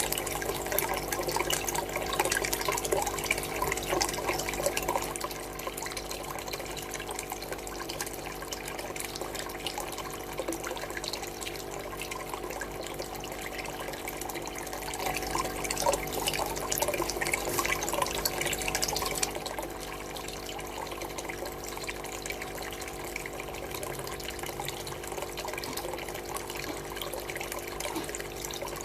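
Water trickling and splashing into ornamental fish tanks over a steady hum. The splashing is louder for the first few seconds and again for a few seconds past the middle.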